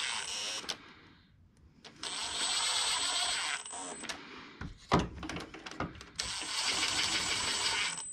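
Impact wrench running in three bursts, a high whine over rapid hammering, driving bolts home tight. There are a few sharp metal clicks between the second and third bursts.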